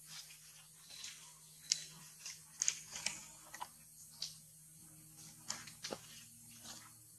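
Irregular sharp crunches and snaps, the loudest about two to three seconds in, as macaques bite and handle food among leaves and twigs, over a faint steady low hum.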